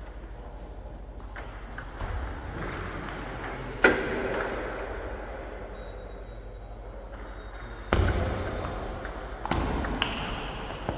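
Table tennis ball strikes on bat and table: one sharp hit about four seconds in, then a few more from about eight seconds on, each with a ringing echo from the large hall.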